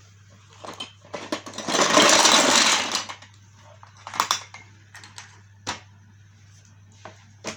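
Lego Duplo box and plastic pieces being handled while unboxing: scattered clicks and knocks, with a loud rattling, rustling stretch lasting about a second and a half, starting about a second and a half in.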